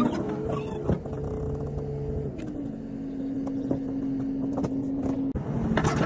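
Diesel engine of a compact track loader running steadily; its note drops to a lower steady pitch a little over two seconds in.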